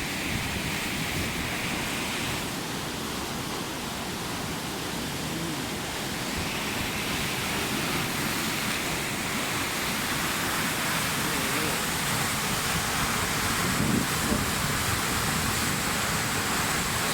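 Water rushing steadily through the open sluice gates of a weir during a flood release.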